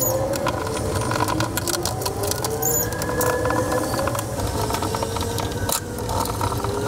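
Hard plastic parts of a nesting box and loose screws clicking and rattling as the box is put together by hand, over a faint whine that slowly wavers in pitch.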